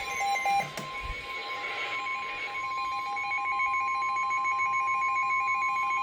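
NOAA Weather Radio warning alarm tone: one steady high tone held throughout, with a pulsing beep over it, signalling that a warning is about to be broadcast. A short click about a second in.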